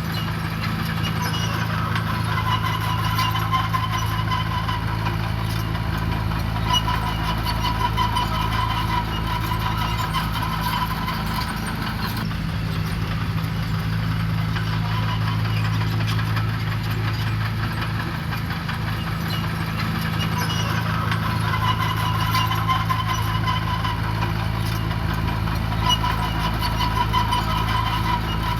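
Diesel engine of heavy earthmoving machinery running steadily at a constant speed, with a higher-pitched whine that comes and goes every few seconds.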